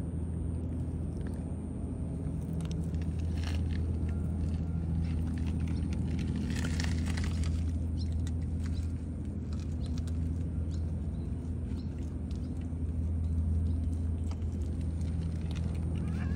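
A steady low engine hum runs throughout, with light scattered ticks and crunches on gravel and a brief rustly patch about seven seconds in.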